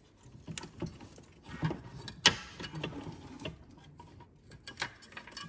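Scattered clicks, light knocks and rattles of small metal engine parts being handled and pushed into place by hand, with one sharp click a little over two seconds in.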